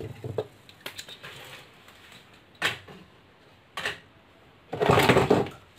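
A 12-volt cooling fan's motor hum dies away as its power wires are disconnected, then clicks and knocks of wires and the plastic fan being handled, with a longer, louder burst of handling noise near the end.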